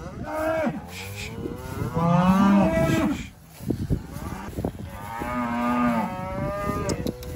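Angus cows and calves mooing and bawling, kept apart by a pen fence. There are three long calls, and the middle one is the loudest.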